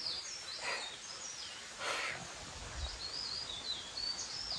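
A bird singing in mountain forest: a run of high, wavering warbled phrases, most continuous in the second half, with two brief soft rustling noises about a second apart early on.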